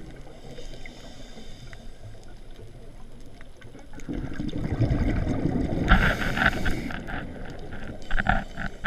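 Underwater, a scuba diver breathing out through a Scubapro regulator (MK25 first stage, S600 second stage): a low bubbling gush starts about halfway through, with crackling bursts as the bubbles stream past. A second, shorter burst of bubbles comes near the end.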